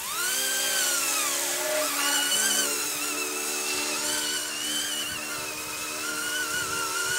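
Electric motors and rotors of an AH-64 Apache RC helicopter running up to flying speed, with a whine that swings up and back down in the first second or so. It then settles into a steady, slightly wavering whine as the helicopter lifts off and holds its hover.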